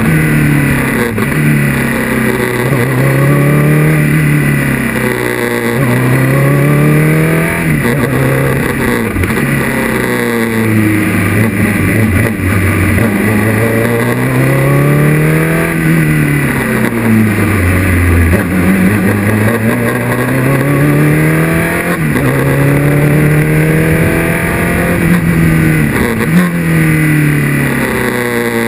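A Formula 2 single-seater's 250 hp Renault engine, heard onboard at speed, its revs climbing repeatedly through the gears and dropping at each shift and under braking. The lowest dip in revs comes about two-thirds of the way through.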